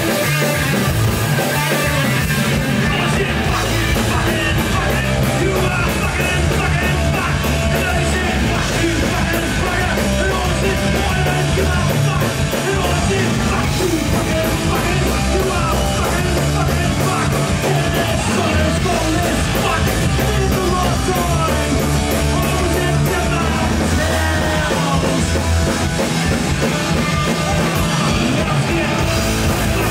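Live punk rock band playing loud, with electric guitar, bass guitar and a drum kit, and shouted vocals over the top.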